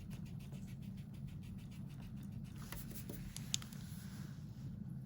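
Drawing on paper: quick, repeated scratchy strokes, about five a second, that stop after about two and a half seconds, then a single sharp click about three and a half seconds in.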